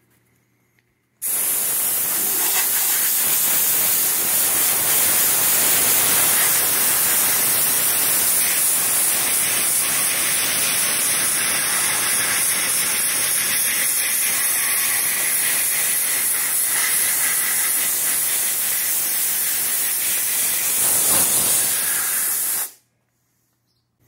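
Compressed-gas blowgun hissing steadily as it blows through a low-NOx wire mesh boiler burner to clear dust and debris from the mesh. It starts about a second in and cuts off shortly before the end.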